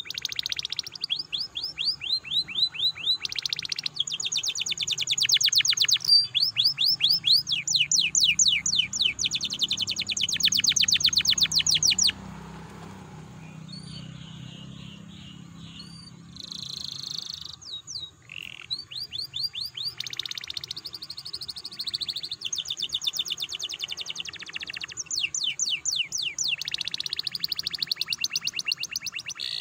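Domestic canary singing a long song of fast rolling trills, phrase after phrase of rapidly repeated notes, with a quieter pause of a few seconds partway through before the trills resume.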